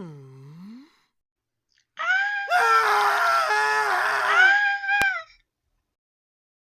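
A short, low vocal grunt, then about two seconds later a loud, high-pitched scream lasting about three seconds, with a brief click near its end.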